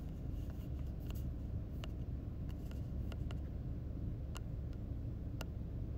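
Quiet room tone: a low steady hum with a few faint, scattered clicks.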